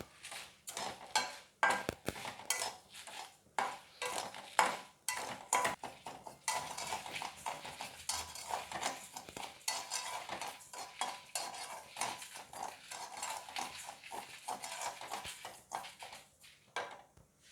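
A spatula stirring raw rice and dried red chillies as they dry-roast in a wok: repeated, irregular scraping strokes against the pan, a few a second.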